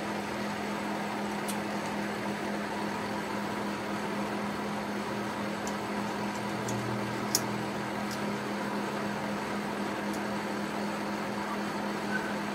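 Steady mechanical room hum, with a few faint, light clicks of small brass clock wheels and arbors touching the movement plate as they are set in place. The sharpest click comes about seven seconds in.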